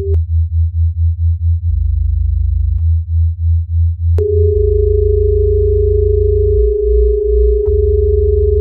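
Electronic music built from pure synthesizer tones: a deep bass tone throbbing about four to five times a second, holding steady for about a second in the middle. A steady mid-pitched sine tone comes in about four seconds in and holds, over a faint high whine.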